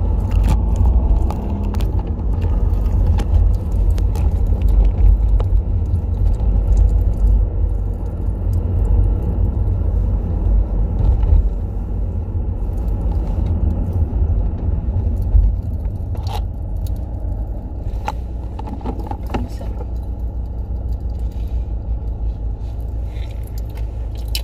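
Low, steady rumble of road and engine noise inside a car's cabin while driving, with a few brief sharp clicks in the second half.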